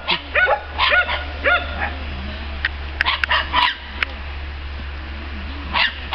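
A Norwegian Elkhound puppy yipping in short, high barks: several in the first second and a half, a quick flurry about halfway, then one more near the end.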